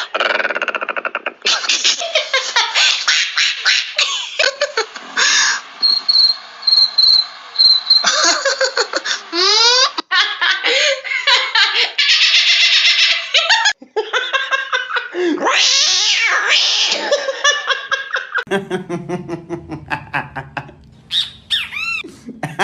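A quick montage of short meme sound clips: bursts of laughter mixed with animal calls and other comic noises, cutting abruptly from one to the next every second or two.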